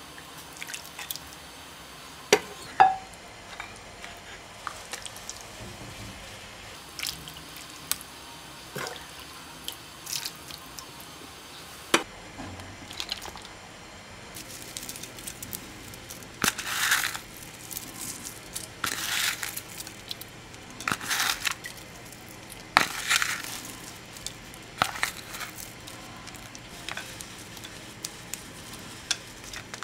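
Soup being ladled and served into a ceramic bowl: liquid dripping and splashing, with light clinks of the ladle against the bowl. Later comes a run of short crunchy, rustling bursts, about one every two seconds.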